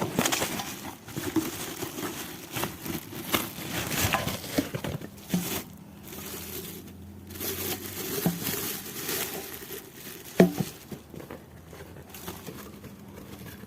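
Parcel packaging rustling and crinkling as it is unwrapped and handled, with scattered small clicks and knocks; one sharper knock about ten seconds in.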